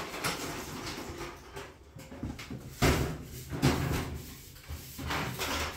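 A galvanized sheet-metal panel being handled and shifted on a concrete floor, scraping and rattling, with two louder knocks about halfway through.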